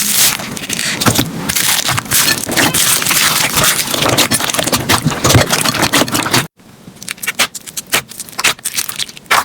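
Slime being squished and worked by hand, with dense crackling, scraping clicks. About six and a half seconds in, it cuts abruptly to a quieter stretch of sparser clicks and pops.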